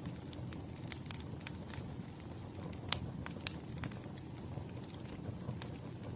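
Wood fire burning, with irregular crackles and snaps over a low steady rumble; one sharper pop about three seconds in.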